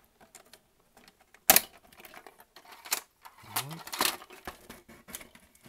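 Hard plastic parts of a CD-ROM drive clicking and knocking as a piece is worked loose by hand, with one sharp snap about a second and a half in and another near three seconds.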